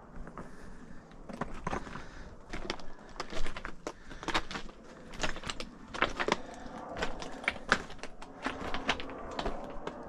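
Hiker's footsteps on the trail: a string of sharp, irregular clicks and crunches, roughly a pair of strikes every second.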